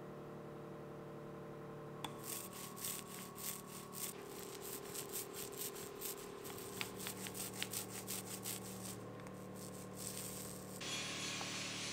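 Hand sanding, with irregular back-and-forth rubbing strokes for several seconds, most likely on the wooden subwoofer enclosure. A steady hiss starts near the end.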